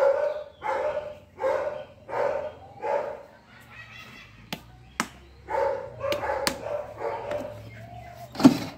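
A dog barking over and over, roughly one bark every two-thirds of a second, with a couple of sharp clicks about halfway through.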